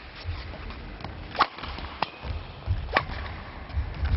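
Table tennis ball clicking off the bats and table in a rally, three sharp ticks roughly a second apart, with low thuds underneath.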